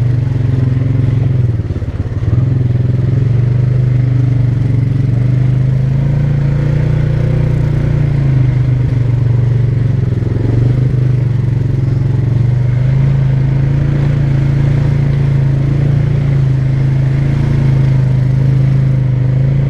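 ATV engine running at a fairly steady speed while riding, with a brief easing off about two seconds in.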